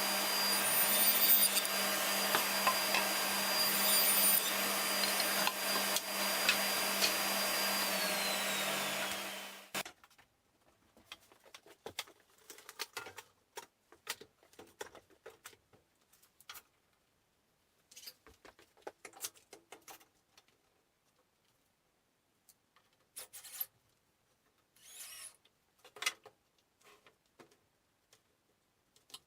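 A power tool runs steadily for about ten seconds, its whine sliding down in pitch as it winds down and stops. Then scattered light clicks and knocks of wood and parts being handled.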